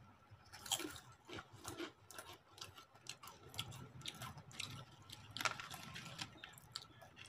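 People chewing crunchy packaged snacks (potato chips, Kurkure and Mad Angles), a faint, irregular run of short crunches.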